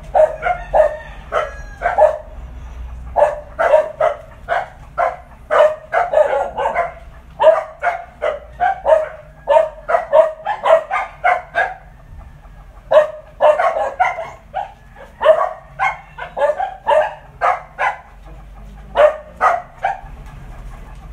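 A dog barking repeatedly in runs of short, sharp barks, a few a second, with brief pauses about twelve and eighteen seconds in.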